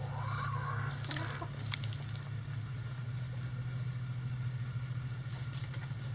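Chickens in their run: a rooster crows once at the start, one call that rises and then falls, and a few sharp ticks follow around two seconds in. A steady low hum runs underneath.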